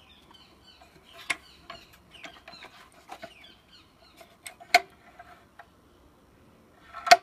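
Handling noise from a cordless track saw and its batteries: a scatter of light plastic clicks and taps, with louder clacks about a second in, near five seconds and at the end.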